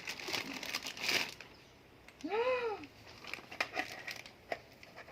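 Plastic packaging crinkling and rustling for about the first second and a half as a parcel is unwrapped. A little after two seconds comes one short call that rises and falls in pitch, followed by a few light clicks.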